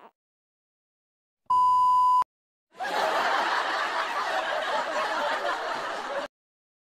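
A short steady electronic beep, then after a pause several seconds of canned crowd laughter that cuts off suddenly.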